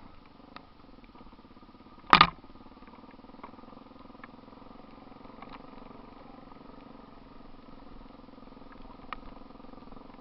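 Off-road vehicle engine running steadily at low revs over a rough trail. About two seconds in there is one loud, sharp knock, and light knocks and rattles come and go.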